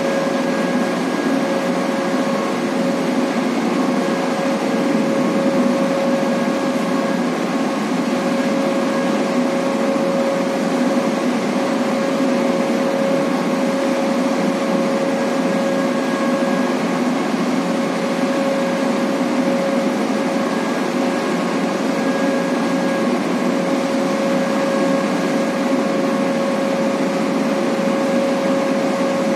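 Steady drone of heavy marine machinery, a constant hum with a steady whine on top and no change in pitch or level.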